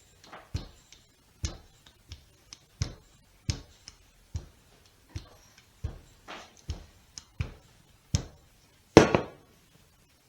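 Wooden rolling pin knocking on the counter as pie dough is rolled out: short, uneven knocks about two a second, with one louder, longer knock near the end.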